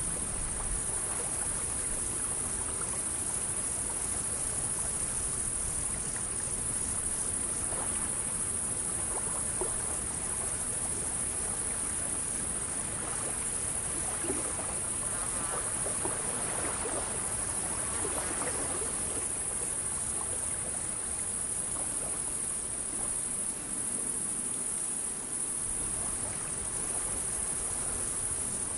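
Steady insect chorus with crickets, a continuous high-pitched buzz that holds the same level throughout.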